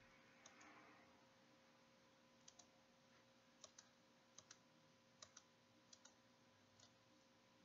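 Faint, sharp clicks of computer controls, each a quick double click (press and release), about seven of them at uneven intervals over otherwise near-silent room tone.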